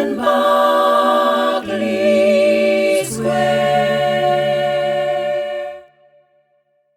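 A cappella close-harmony jazz vocals, one woman's voice multitracked in up to five parts, singing the closing chords of the song. The chord changes twice, then the final chord is held and cuts off about six seconds in.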